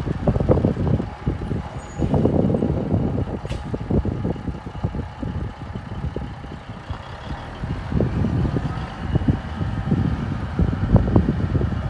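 Diesel engine of a 1989 Ford L9000 semi tractor running as the truck drives slowly across a dirt yard, an uneven low rumble.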